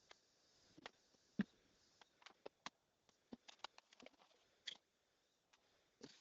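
Near silence: room tone with scattered faint, irregular clicks and ticks.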